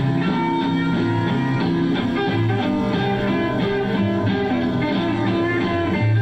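A rockabilly recording led by guitar, played back from a home-cut 78 rpm record on an early-1950s Califone Promenade tube record player and heard through its speaker.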